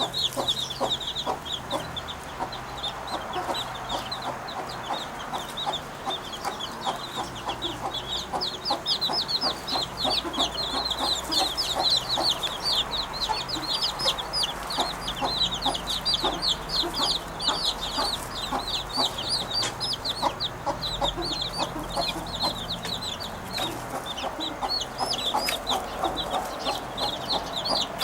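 Birds chattering without a break: a rapid run of short, high chirps, several a second, over lower clucking notes that sound like a hen.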